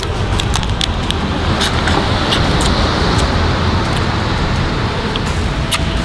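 Steady rushing noise of wind on the microphone and surf, with a low rumble and a slight swell in the middle, and scattered sharp clicks over it.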